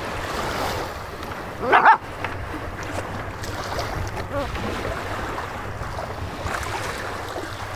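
A dog barks once, sharply, about two seconds in, over steady wind rumbling on the microphone.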